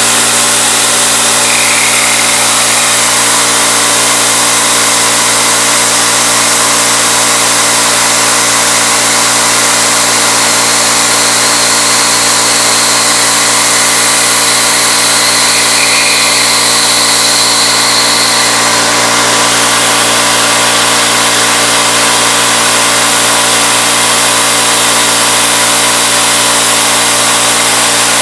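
Bridgeport knee mill's spindle running at 2200 RPM while a 3/8-inch end mill cuts aluminum: a steady machine hum with cutting noise. A faint higher whine comes in for several seconds near the middle.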